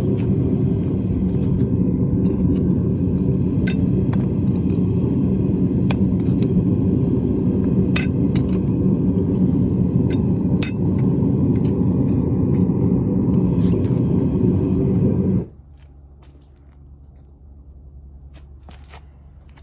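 Loud, steady low rumble with light metallic clinks now and then on top, cutting off sharply about 15 seconds in.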